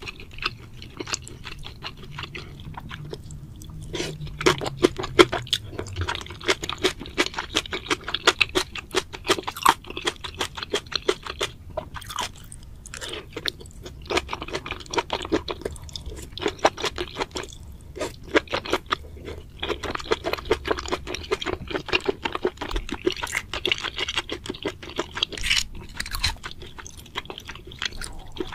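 Close-miked ASMR eating: chewing and crunching of spicy seafood and noodles, including octopus, as a dense run of quick mouth clicks.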